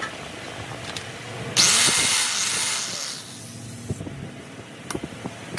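A sudden blast of compressed air from a hose-fed air tool, hissing loudly for about a second and a half and then tailing off. A few light metal knocks come before and after it.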